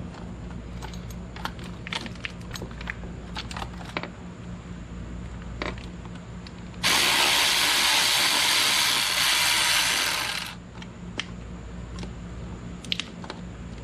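Hand ratchet with a Torx bit clicking irregularly as it backs out the idle air control valve screws on a Jeep 4.0 intake. From about seven seconds in, a loud steady hiss lasts a little under four seconds and then stops.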